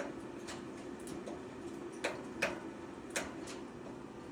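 A handful of short, sharp ticks and clicks, irregularly spaced, over a steady low hum.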